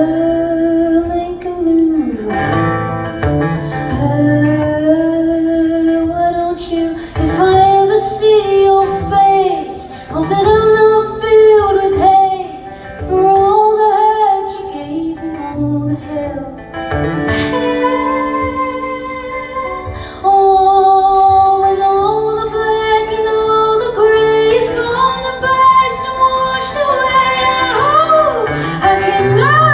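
Live performance of a woman singing with guitar accompaniment, her voice carrying the melody over the chords.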